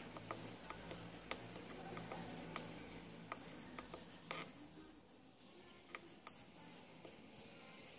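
Faint, irregular small clicks of fingers pressing and moving parts on a plastic solderless breadboard, the loudest about four seconds in, and fewer after that. A low steady hum runs under them and stops about four and a half seconds in.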